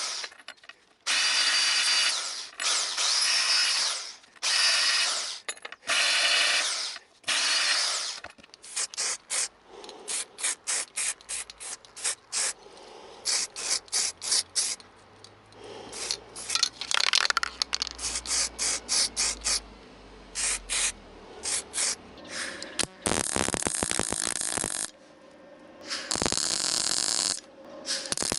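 Hand-held electric drill worked in bursts: several runs of a second or two, then many quick short stabs, then longer runs near the end, typical of drilling holes in sheet-metal patch panels.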